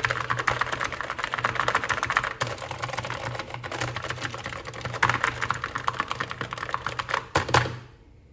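Key Tronic foam-and-foil keyboard being typed on rapidly: a dense clatter of keystrokes, with a few heavier strokes near the end just before the typing stops.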